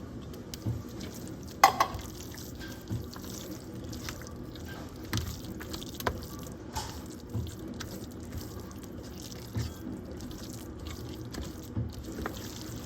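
Spoon stirring and mashing wet cornbread dressing mixed with cream of chicken soup, with squishy wet sounds and a soft thud about once a second. A sharper clack of the spoon on the dish comes just under 2 seconds in.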